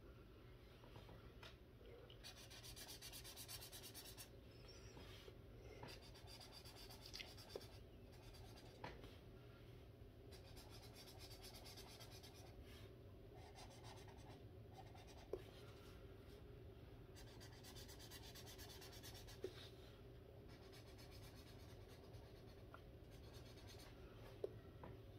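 Felt-tip marker scratching back and forth on a colouring-book page, faint and in stretches of quick strokes, with a few light clicks between them.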